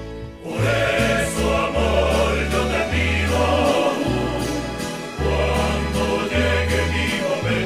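Rondalla serenata music: a chorus of voices singing over a steady, held bass line. There is a short dip in level just after the start.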